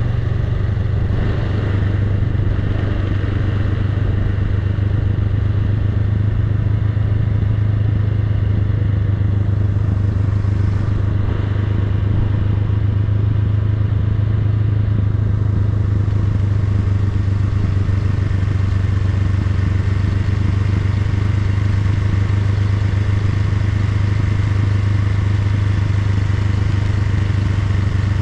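Honda Rebel 500's parallel-twin engine running at steady, even revs while the motorcycle rolls slowly downhill.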